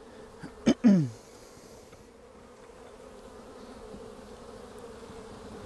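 Honey bees buzzing steadily over an open hive during an inspection, a droning hum at one pitch that slowly grows louder. About a second in, a brief click and a short falling vocal sound break in.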